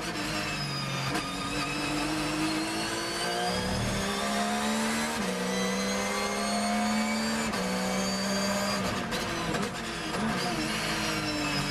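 Porsche 911 GT3 R's flat-six race engine heard from inside the cockpit, accelerating hard through the gears: the pitch climbs, then drops at each of several upshifts.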